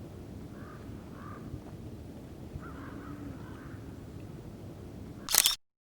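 Wild birds calling, short harsh calls in groups every second or two, over a steady low outdoor background noise. About five seconds in, a brief loud burst of noise, after which the sound cuts out abruptly.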